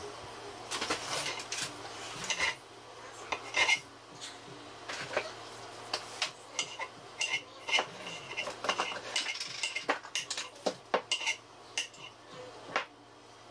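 Kitchen knife cutting and dicing a tomato on a cutting board: a series of irregular sharp taps of the blade against the board, some in quick runs of several strokes.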